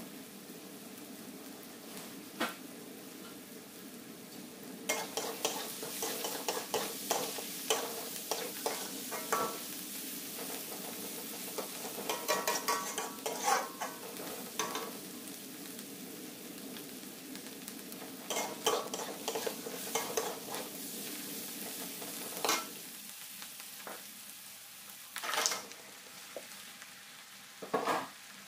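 Sliced green chilies sizzling in a wok while a metal spatula stirs them, scraping and clinking against the pan in bursts. Later the sizzle softens and there are a few separate knocks of the spatula on the wok.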